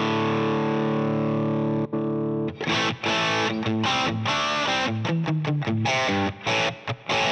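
Distorted electric guitar played through an Axe-Fx III 'Plexi 50W 6CA7' amp model, a Marshall Plexi crunch sound: one chord rings for about two and a half seconds, then a riff of short, choppy chords and notes.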